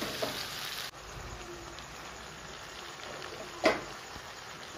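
Chicken-and-tomato gravy sizzling and simmering steadily in a wok, with a single sharp knock about three and a half seconds in.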